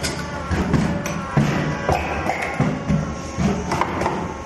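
Background music with a steady percussive beat.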